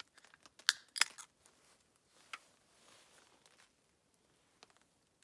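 Aluminium drink can being opened: a few sharp clicks and a crack from the ring pull within the first second or so, then a faint fizzing hiss.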